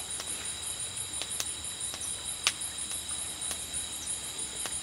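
Crickets and other night insects chirping steadily in high, rapidly pulsing trills, with a few sharp clicks scattered through, the loudest about halfway through.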